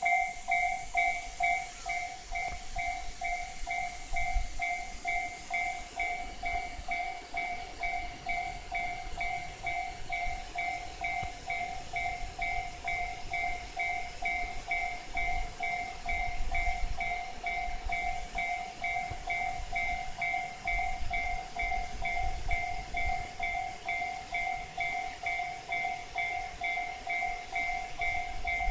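Japanese railway level-crossing warning bell ringing in a rapid, even, repeating rhythm, signalling that a train is approaching or passing. Low rumble swells now and then beneath it.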